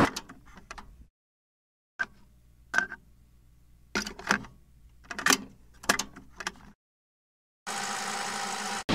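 Sharp clicks, a handful spread over a few seconds against a faint hum, then about a second of steady TV-static hiss near the end that cuts off abruptly.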